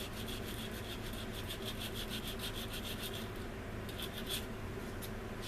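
Hand sanding on the styrene plastic of a model aircraft wing, smoothing a seam filled with cured CA glue: quick, even back-and-forth scraping strokes, about five a second, that stop about three seconds in, followed by a few single strokes near the end.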